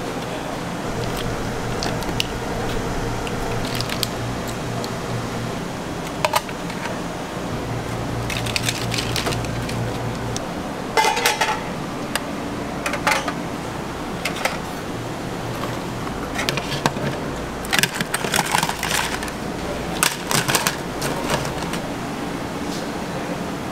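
Scallop shells and raw prawns being set out on a stainless steel tiered serving tray: scattered clacks and clinks of shell on metal, more frequent in the second half, over a steady low hum that stops about ten seconds in.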